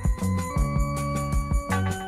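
Instrumental music with a steady beat: a kick drum and bass under held tones that change chord about half a second in and again near the end, with quick high ticking percussion on top.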